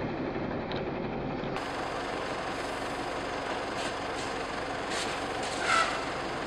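Steady road-traffic noise of vehicles, with a few faint clicks and a short high squeal near the end.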